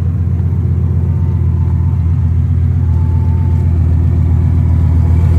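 A car engine idling steadily, a low even rumble close by.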